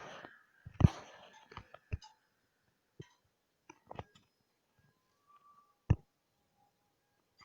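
Irregular sharp clicks and taps. Several come close together in the first two seconds, then a few sparse ones follow, with the loudest about six seconds in.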